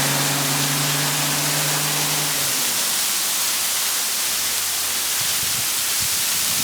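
Steady, loud rushing hiss of a waterfall's falling water. Background music with held low notes fades out about two and a half seconds in.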